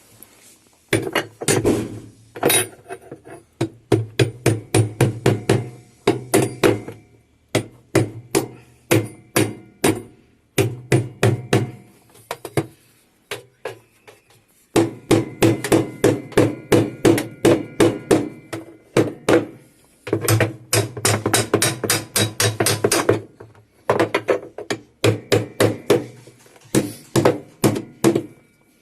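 Rapid hammer blows on metal in runs of several strikes a second, broken by short pauses, as the spin basket's hub nut on an LG top-loading washer is knocked loose.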